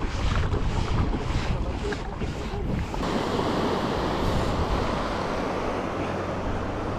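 Small sea waves washing around a kayak, with wind buffeting the microphone. For the first three seconds the rush of water pulses about twice a second, then it settles into a steadier wash.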